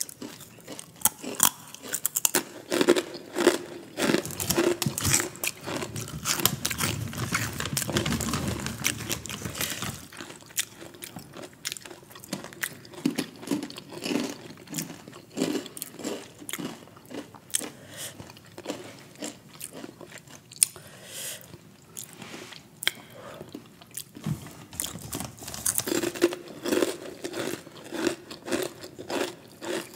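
Biting and chewing crunchy orange snack sticks: a dense run of sharp crunches that thins out in the middle and picks up again near the end.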